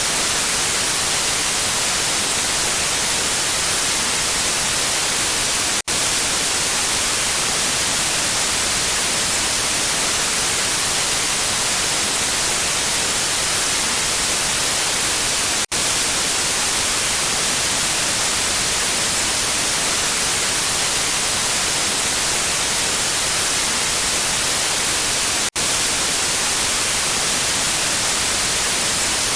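Steady hiss of lost-signal static noise, strongest in the high range, broken by three very brief dropouts about ten seconds apart.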